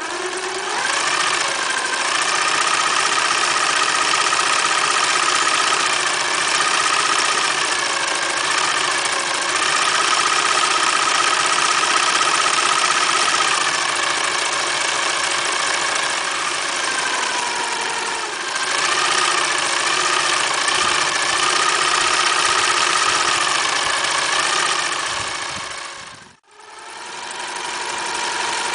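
Singer Futura 1000 electric sewing machine running at speed, its motor whine rising and falling a little as the stitching speed changes. It stops briefly near the end and starts again.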